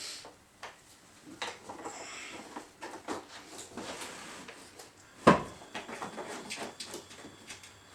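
Small clicks and knocks of pressure-washer pump parts being handled and fitted together by hand, with one louder knock about five seconds in.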